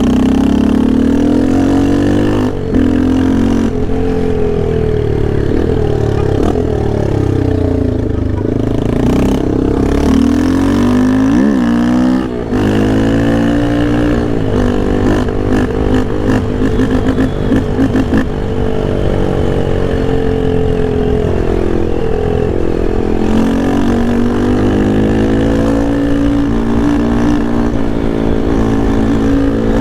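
Yamaha Lander 250's single-cylinder engine revving hard under aggressive riding, its pitch repeatedly climbing and dropping through gear changes and throttle lifts. There are short dips, about two and a half seconds in and again around twelve seconds in.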